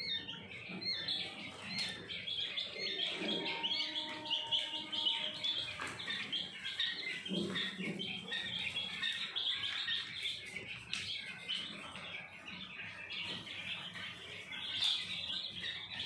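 A brood of quail chicks peeping, many short high chirps overlapping without a break.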